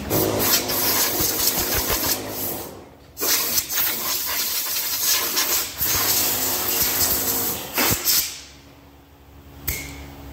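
Compressed air from a blow gun blasting into an electric motor's open housing, blowing it out: a loud rushing hiss in two long blasts, the first about three seconds, the second ending about eight seconds in, then one short blast near the end.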